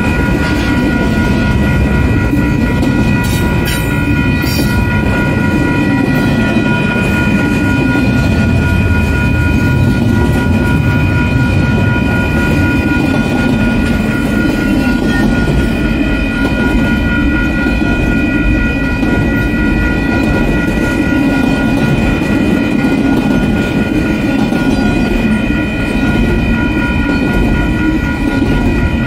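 Double-stack intermodal container train rolling past at close range, a steady loud rumble and clatter of wheels and cars on the rails. Several steady high ringing tones sound over it, the lowest of them fading out about six seconds in.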